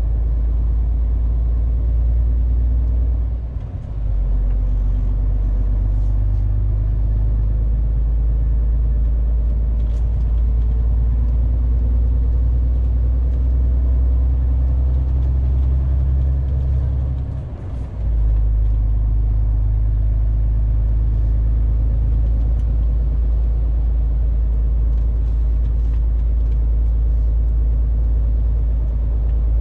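MAN TGX 470 truck's diesel engine droning steadily inside the cab while driving, with road noise. The drone dips briefly twice, about four and about eighteen seconds in.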